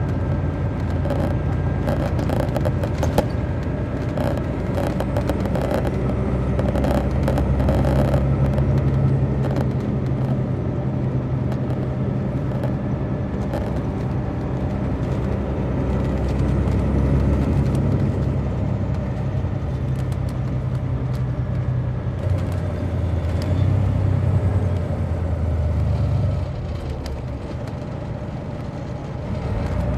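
A 2003 MCI D4500 coach's Detroit Diesel Series 60 engine running while the bus is under way, a steady engine note through the Allison automatic transmission. About two-thirds of the way through, the note wavers and drops lower, and it goes quieter near the end.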